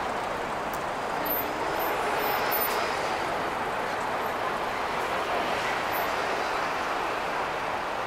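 Steady city-street traffic noise at a busy intersection: a continuous wash of passing cars and buses.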